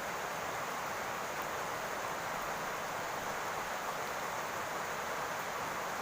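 Rain falling steadily on a roof: an even hiss that stays at the same level throughout.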